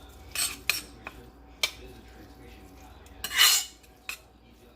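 Kitchen utensils knocking against dishes or cookware: several sharp clicks, and one louder short burst of noise about three and a half seconds in.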